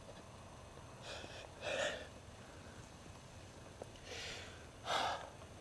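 A person gasping for breath: four short, breathy gasps in two pairs, the second of each pair louder.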